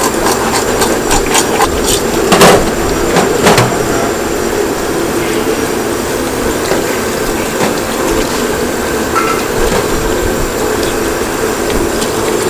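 Steady running water, with a few sharp knocks and clatters in the first four seconds, the loudest about two and a half seconds in.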